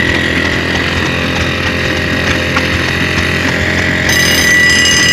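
Electric fire bell ringing continuously, a steady buzzing rattle; higher steady tones join about four seconds in.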